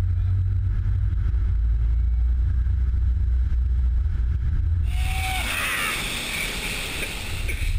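Steady low rumble from the towing vehicle. About five seconds in it gives way to a loud hissing rush of spraying water as the wakeboard cuts through the floodwater, with a brief falling cry at its start.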